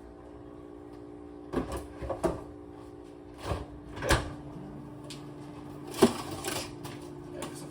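A handful of short knocks and clunks of kitchen items being handled and set down, over a steady low hum.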